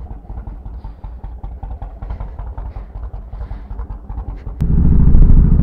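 Yamaha Road Star 1700's air-cooled V-twin engine running with a low, even pulse. About four and a half seconds in it gets suddenly much louder as the throttle opens and the bike pulls away.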